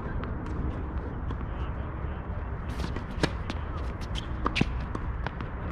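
Tennis rally: a tennis ball struck by rackets and bouncing, heard as a string of sharp knocks, the loudest about three and four and a half seconds in, over a steady low rumble.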